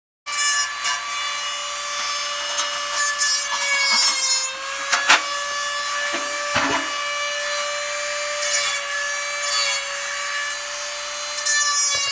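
A power tool motor running steadily under load with a whine, working metal. Its pitch sags briefly about four and a half seconds in, and two sharp knocks come a second or so later.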